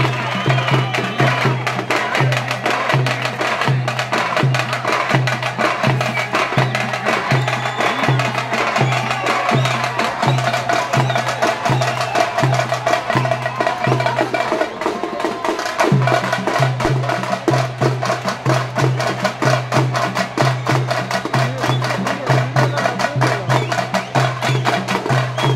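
Street folk drum troupe playing: fast, dense drum strokes over a low booming beat that pulses about twice a second, with a short break in the low beat near the middle.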